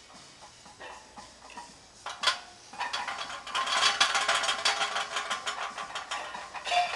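Barbell loaded with 315 lb of plates rattling and clinking. A single knock comes about two seconds in, then a dense clatter of metal runs for about three and a half seconds.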